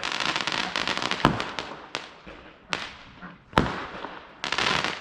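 Fireworks going off: a burst of rapid crackling, then four sharp bangs roughly a second apart, and another crackling burst near the end.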